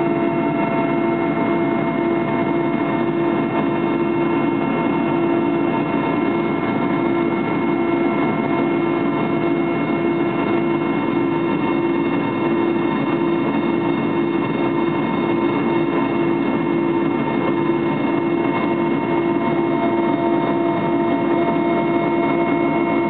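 Aircraft engine drone heard inside the cabin during the climb after take-off: a loud, steady hum with one strong low tone and fainter higher tones above it, unchanging throughout.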